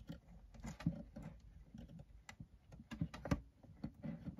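Faint, irregular small clicks and taps of a Polaroid OneStep 2's plastic housing being handled and pressed together by hand, a few sharper clicks among them.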